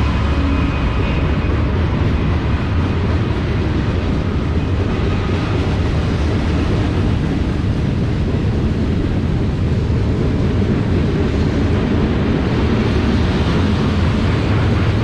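Freight train rolling past, a steady low rumble without a break.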